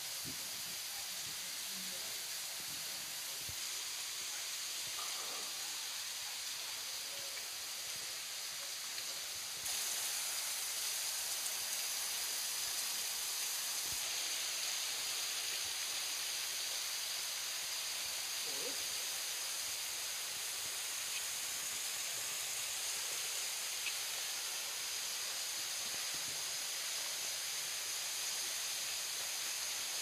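Water of a tall, thin waterfall falling onto rocks, a steady hiss that grows a little louder about a third of the way in.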